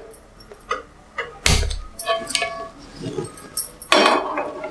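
A frying pan set down on a gas stove's metal pan supports: a heavy clunk about a second and a half in, then a brief ringing of metal, with scattered lighter clicks and knocks of metal on metal and a louder clatter near the end.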